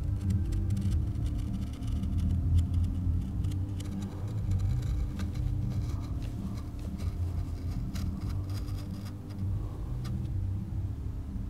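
A steady low rumble, with faint scratching of a pen on paper over it.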